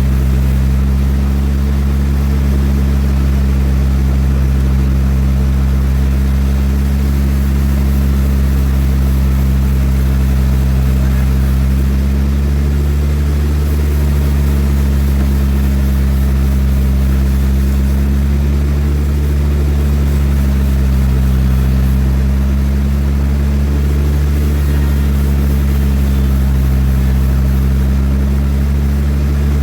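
Sawmill engine running steadily under load: an even, low drone that swells slightly now and then.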